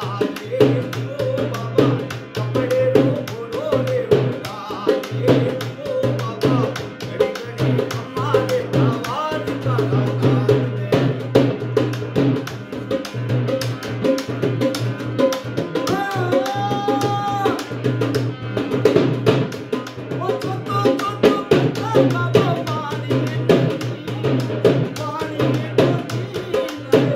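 Folk music from a two-headed barrel drum and a hand-pumped harmonium: quick hand-beaten drum strokes run under the harmonium's held reed chords, with a man singing along.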